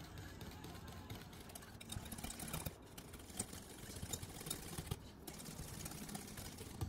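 Wire balloon whisk beating whipping cream by hand in a glass bowl, in rapid, steady strokes, the wires clicking against the glass.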